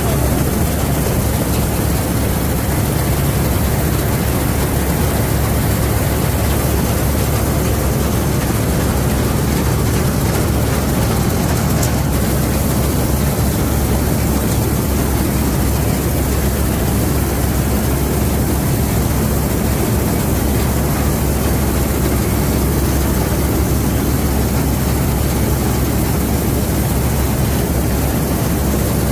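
Laverda M100 AL combine harvester running steadily while cutting wheat: a constant, loud drone of engine and machinery heard from the open driver's platform.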